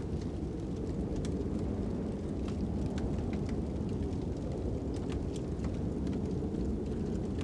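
Wood fire crackling with scattered sharp pops over a steady low wind rumble.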